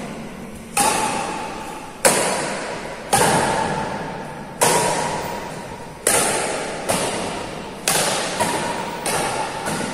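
Badminton rackets striking a shuttlecock back and forth in a rally, a sharp smack about every second, each one ringing on in the echo of a large hall.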